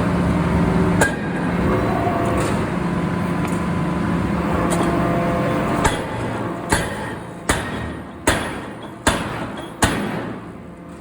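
Steady hum of forge-shop machinery, then six evenly spaced blows of a forging hammer on metal, about one every 0.8 seconds, as the hum dies down.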